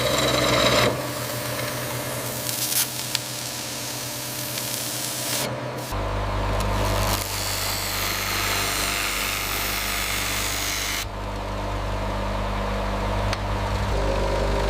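Workshop machinery running with tools working on material: steady machine hum under scraping and grinding noise, which changes abruptly every few seconds.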